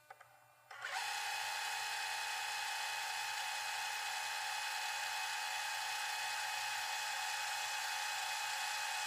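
Small camera motor whirring steadily with an even, unchanging pitch, starting about a second in and cutting off abruptly at the end.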